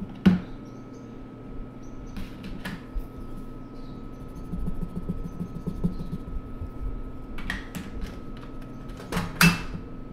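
Derwent Inktense colour stick scribbling on paper in quick, rhythmic strokes through the middle, with sharp clicks and knocks of art supplies being handled, the loudest about a second in and near the end, over a faint steady hum.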